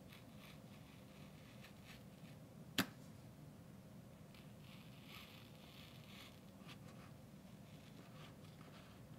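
Faint scratching of a pencil drawing feather lines on a basswood wing carving, in short strokes, with one sharp tap about three seconds in.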